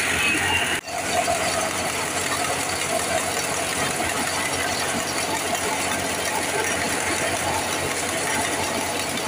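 Tractor-driven wheat thresher running: a steady, dense mechanical clatter as straw is blown out of the machine. The sound breaks off for an instant just under a second in.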